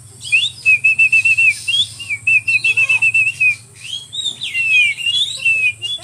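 A man whistling through pursed lips. First comes a long run of quick warbling notes held at one high pitch, then a few falling and rising glides.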